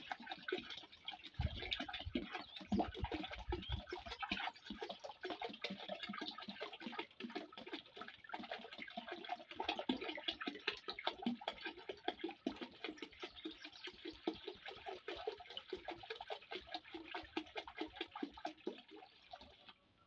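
Liquid microbial culture pouring from a plastic jerrycan into a drum of water: a continuous splashing, trickling stream that thins and stops near the end.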